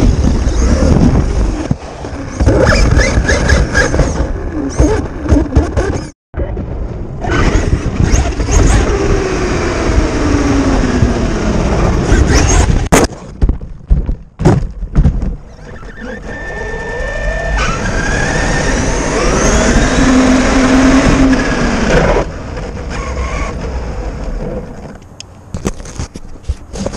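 Traxxas RC trucks heard from an onboard camera: electric motor and gear whine rising and falling with the throttle, over tyre and dirt noise and wind rush on the microphone, with several sharp knocks from bumps and landings.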